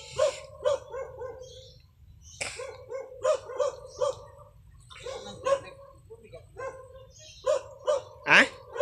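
A dog barking repeatedly in short, pitched barks, two or three a second in bursts, with one louder rising yelp near the end.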